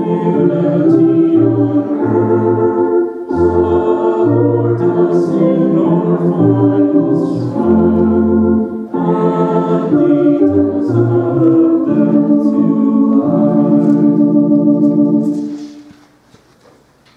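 Church organ playing a slow hymn tune in sustained chords with a bass line, the final chord held and then released about 15 seconds in, with a short reverberant tail.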